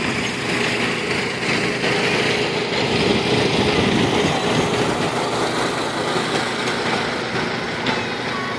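Cockshutt 1900 tractor's four-cylinder two-stroke 4-53 Detroit Diesel engine running steadily while the tractor stands hitched to the pulling sled, not yet under load.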